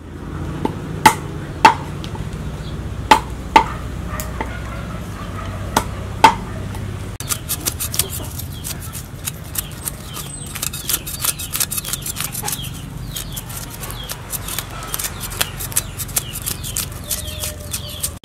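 A knife scraping the scales off a whole fish on a wooden cutting board: a fast, uneven run of short scraping strokes from about seven seconds in. Before that come a few sharp, loud knocks, mostly in pairs.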